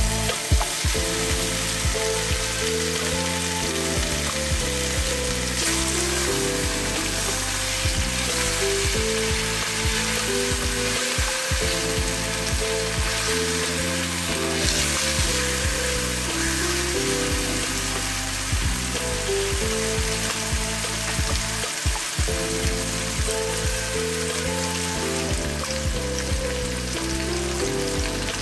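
Pork tenderloin sizzling steadily in hot oil in a frying pan, with background music playing over it.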